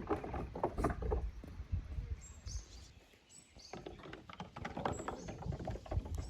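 Goats' hooves clattering and knocking in quick irregular steps, with low thumps. The clatter eases off for about a second in the middle, then picks up again.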